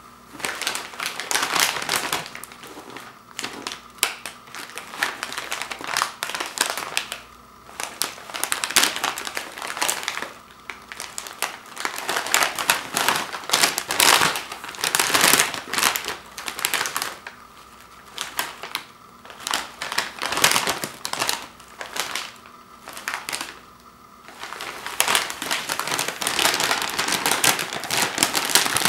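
Plastic potato chip bag crinkling in irregular bursts as it is handled and turned over, with short pauses between. Near the end the crinkling becomes steadier and denser as the top seam is gripped and pulled to open the bag.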